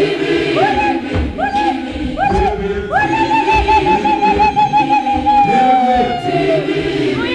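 Singing by several voices: a high voice makes short upward swoops about twice a second, then holds one long wavering note that slides down near the end, over lower voices.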